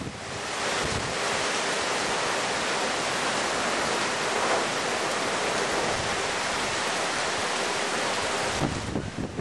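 Heavy tropical downpour pouring steadily in gusty wind from the remnants of a tropical cyclone. The rain swells over the first second and eases near the end.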